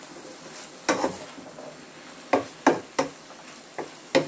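Wooden spatula stirring sliced vegetables and sausage in a frying pan, knocking against the pan about six times at uneven intervals, over a faint steady sizzle.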